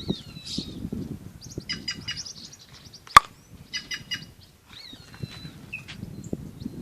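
Wild birds calling: a few whistled, gliding notes and two short bursts of rapid chirping. A single sharp click comes about three seconds in, over a low rustling noise.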